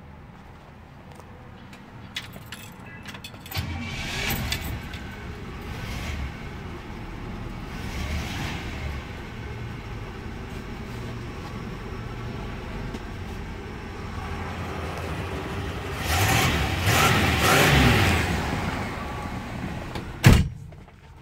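A 1966 Chevrolet Impala SS's 327 small-block V8 running and revved several times, the longest rev lasting a couple of seconds near the end. A single sharp knock comes just before the end.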